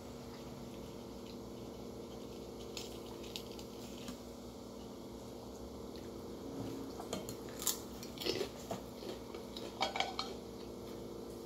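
Eating at the table: a spoon clicking and scraping on a plate and a crisp cracker crunching, in scattered short sounds that come thicker in the second half, over a steady low hum.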